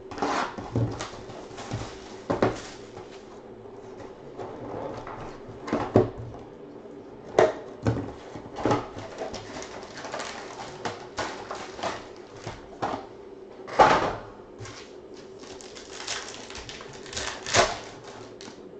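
Cardboard trading-card hobby box being opened and its foil card packs handled: a run of irregular rustles, scrapes and foil crinkles, with a few louder crackles, over a faint steady hum.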